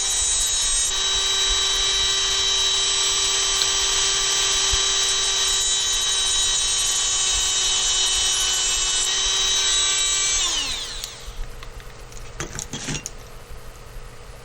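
A small electric power tool's motor runs at steady speed while the rebuilt pipe stem is being evened out. About ten and a half seconds in it is switched off and winds down with a falling whine. A couple of light knocks follow.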